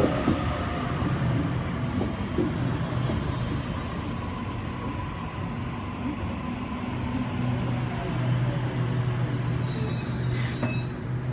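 Sydney Trains Waratah double-deck electric train standing at the platform with its doors open, its onboard equipment giving a steady low hum that grows a little stronger partway through.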